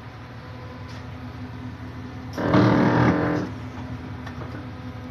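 Steady hum of a locomotive cab with the windscreen wiper sweeping, with faint clicks. About two and a half seconds in, a loud buzzing tone lasts about a second.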